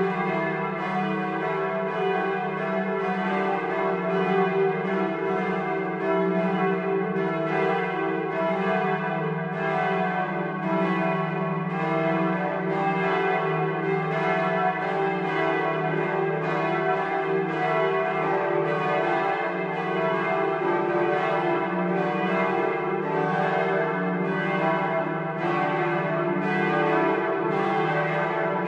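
Large bronze church bells of Bremen Cathedral swinging and ringing together in a full peal. Their strikes overlap irregularly, several to the second, over a steady, sustained hum.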